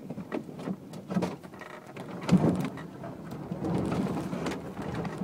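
Electric-converted 1992 Renault 9 rolling slowly over a rough dirt track, heard from inside the cabin: tyres crunching and rumbling on the loose surface, with scattered knocks and rattles from the suspension and body. The rumble grows louder near the end.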